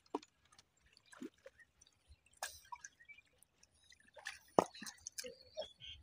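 Hands digging in wet mud: scattered short squelches and drips, irregular, the loudest a little past the middle.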